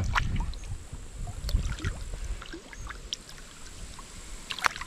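River water sloshing and trickling around hands as a caught fish is held in the current and released, with a few small splashes and clicks. The low wash is strongest in the first half and then dies down.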